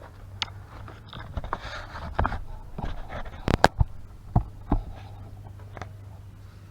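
Tools and metal parts being handled during brake work: scattered clicks and knocks, the loudest few coming about three and a half to five seconds in, over a steady low hum.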